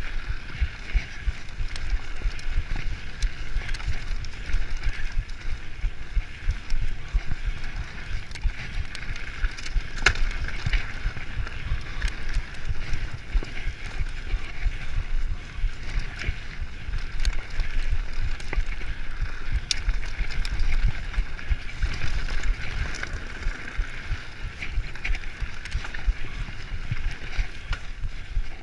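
Mountain bike descending a dirt singletrack at speed: wind buffeting the microphone, knobby tyres rolling over dirt and the bike rattling, with scattered sharp knocks as it hits bumps.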